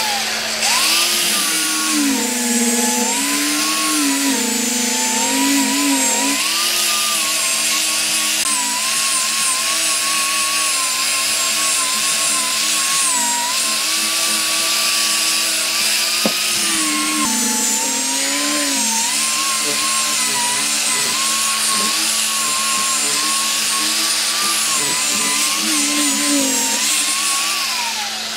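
Angle grinder with a sanding disc running while sanding a wooden stump. The motor's pitch wavers up and down as it works the wood, over a high sanding hiss, and it winds down near the end.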